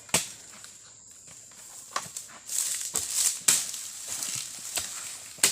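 Irregular sharp knocks and thuds, about six spread over the stretch, with a burst of rustling in the middle: oil palm fruit bunches tumbling out as the carrier's load bin is tipped.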